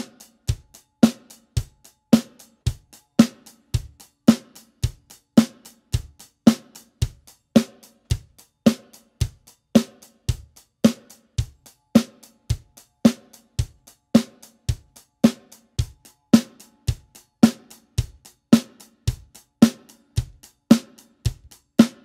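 Acoustic drum kit played with wooden drumsticks: a steady beat, with bass drum and snare drum alternating about twice a second and lighter strokes between.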